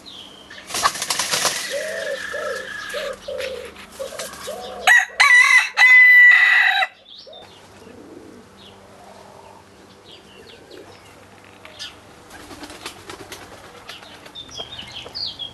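Roosting chickens in a tree: a burst of wing flapping about a second in, then a quick run of low clucks. At about five seconds a cockerel crows loudly, the loudest sound here, followed by faint scattered clucks.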